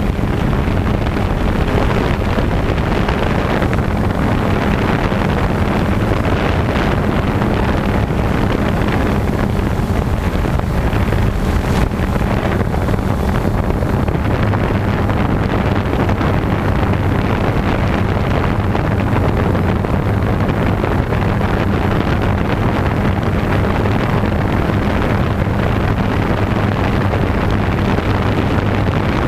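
DJI Phantom 2 quadcopter's electric motors and propellers running steadily in flight: a constant low hum, with wind noise on the microphone.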